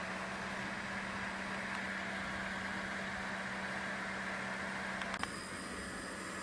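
Nissan Patrol Y60's engine idling steadily while the 4x4 sits stuck. About five seconds in a sharp click is heard and the steady hum drops out.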